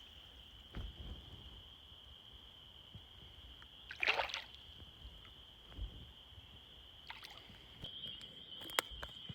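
Faint, steady high-pitched trilling of frogs calling, with a brief soft slosh of water about four seconds in.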